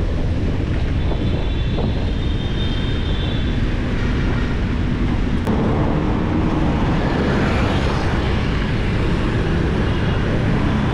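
Wind rushing over the microphone of a handlebar-mounted camera on a moving bicycle, a steady low rumble, mixed with the noise of road traffic. The noise grows fuller about halfway through.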